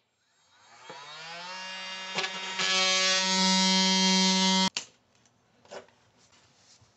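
Cordless oscillating multi-tool cutting away baseboard in a corner. Its motor winds up with a rising whine, settles into a steady buzz that gets louder about two and a half seconds in, and stops abruptly just before five seconds.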